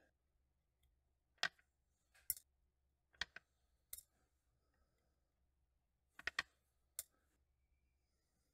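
Small, sharp metallic clicks and taps of a watchmaker's screwdriver and tweezers against a watch movement's bridge, plate and screws as the barrel bridge screws are backed out and the bridge is lifted off. The clicks come singly, with a quick cluster of three about six seconds in, over near silence.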